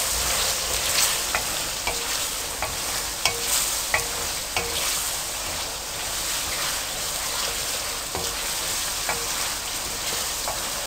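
Boneless chicken pieces, chopped green onion and garlic sizzling steadily in hot oil in an aluminium wok, while a wooden spoon stirs them, its scrapes and taps against the pan giving scattered short clicks.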